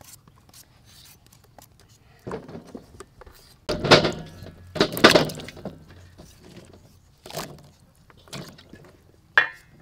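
Peeled potatoes and carrots dropped one by one into a stainless steel bowl of water: a series of splashes and knocks against the bowl, the loudest about four and five seconds in.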